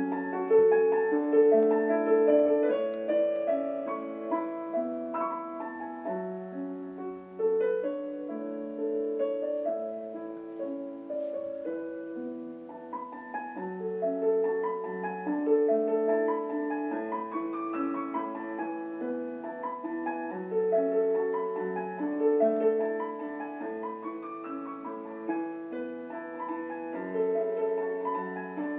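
Background piano music, a gentle melody of held notes over a steady accompaniment.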